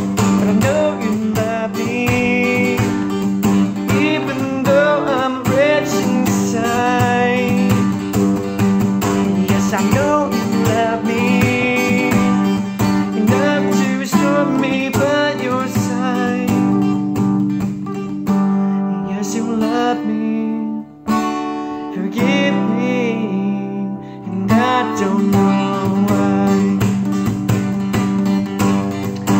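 Acoustic guitar strummed steadily, with a man singing over it in places. The strumming drops out briefly about two-thirds of the way through, then picks up again.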